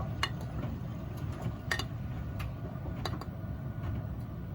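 Miele front-loading washing machine running early in a wash while it is still taking in water: a steady low hum, with a few light clicks.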